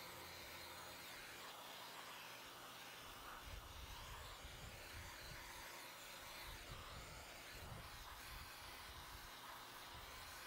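Faint steady hiss, with irregular low rumbles of wind on the microphone from about three seconds in.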